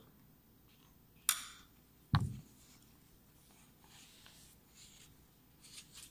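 A plastic ruler scraping wet shaving cream off a sheet of paper: a short scrape about a second in, a single sharp knock about two seconds in, then faint soft scraping and paper rustle.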